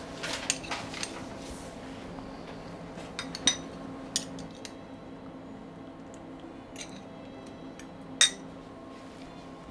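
Kitchen utensils clinking and knocking against cookware while raspberries are crushed and mixed into the soufflé base: a cluster of small knocks at first, then scattered single clicks, the sharpest near the end, over a steady background hum.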